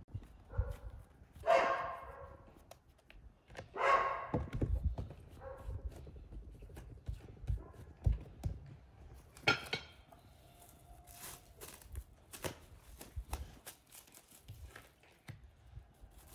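A dog barks twice, about a second and a half and four seconds in, with a couple of fainter barks around them. Dull thuds of dough being kneaded and pressed on a table run underneath.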